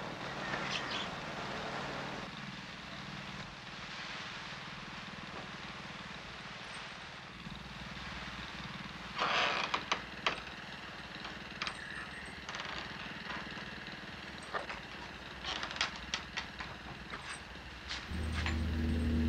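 Steady low hum of a small engine generator running, with a cluster of sharp knocks about nine seconds in and scattered taps after it, from a wooden screen door and footsteps on wooden boards. A louder low rumble comes in near the end.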